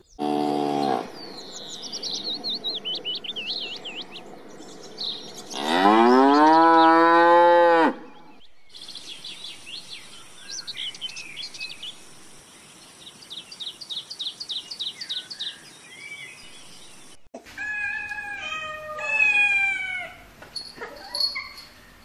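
A string of animal calls: high, rapid chirping and twittering, one long, loud, drawn-out low call about six seconds in, and a few short falling calls near the end.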